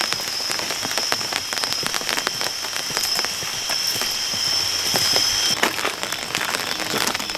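Continuous crackling hiss full of small ticks, with a steady high-pitched whine over it that cuts off abruptly about five and a half seconds in.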